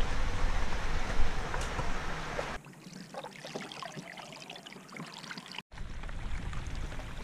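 Three short takes cut together. First, a loud rumbling, rustling noise from a canoe carried overturned along a portage trail. About two and a half seconds in, a quieter trickling and lapping of lake water as a hand trails beside the canoe, then near the end rain falling on the lake with a low rumble.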